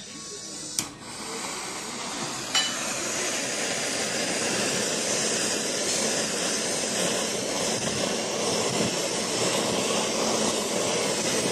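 Handheld gas kitchen blowtorch burning with a steady, loud hiss. Two sharp clicks come near the start, and the hiss sets in about two and a half seconds in.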